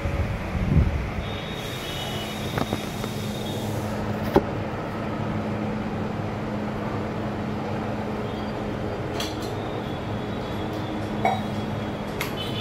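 A steady low hum with scattered knocks, clicks and light clinks, the loudest knocks about a second in and a little past four seconds.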